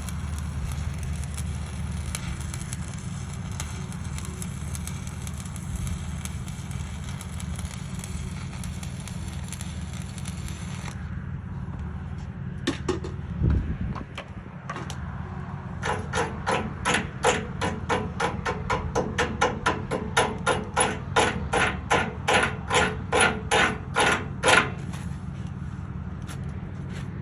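A hammer striking steel in a quick, even run of ringing blows, about three a second, for some eight seconds in the second half, over a steady engine hum; a crackling hiss stops about eleven seconds in.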